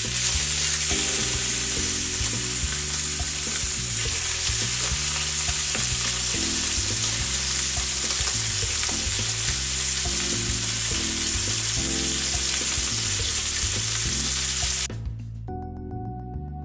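Skin-on chicken thighs frying skin-down in hot oil in a pan, a loud, steady sizzle and spatter. It cuts off abruptly about fifteen seconds in.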